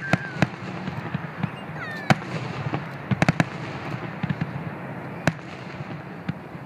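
Aerial fireworks going off: scattered sharp bangs and cracks, with a quick cluster of several about three seconds in.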